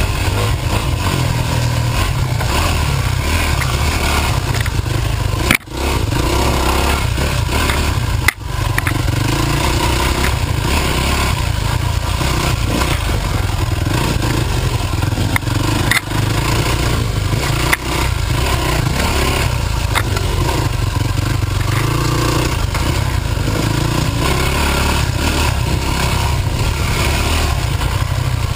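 Dirt bike engine running under varying throttle while riding a trail. The sound drops out for an instant twice, about six and eight seconds in.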